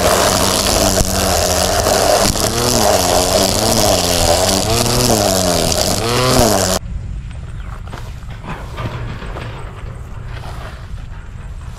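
Total battery-powered string trimmer running, its motor's whine repeatedly dipping and recovering in pitch as the line cuts into grass. It cuts off abruptly about seven seconds in, leaving faint rustling in the grass.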